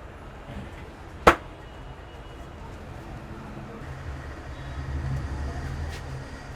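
A single loud, sharp crack about a second in, struck during a vigorous head massage, over a low rumble of traffic that swells about two-thirds of the way through.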